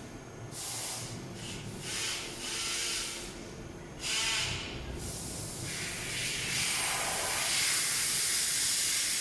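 Bursts of airy hiss, a few short ones and then a longer steady stretch in the second half.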